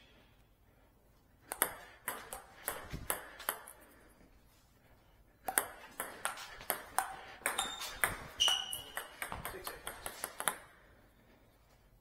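Table tennis ball being hit back and forth, sharp clicks off the paddles and the table in quick succession: a short exchange about a second and a half in, then a longer rally from about five seconds in until near the end.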